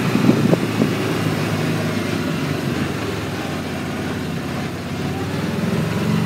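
Vehicle engine running steadily, with a few knocks in the first second.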